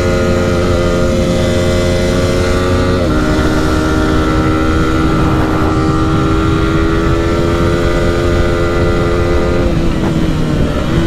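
Yamaha R15 V4's single-cylinder 155 cc engine running at speed, heard from the rider's seat over a low wind rumble. About three seconds in, the pitch drops with an upshift, then climbs steadily as the bike gains speed. Near the end it falls away as the throttle is eased.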